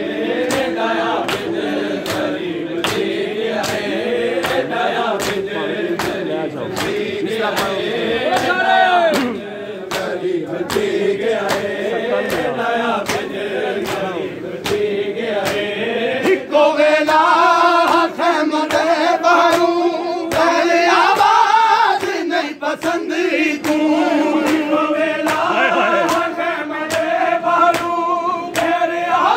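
Men chanting a noha together in unison, over the steady slaps of hands beating bare chests in matam, about two slaps a second. The chanting grows louder about halfway through.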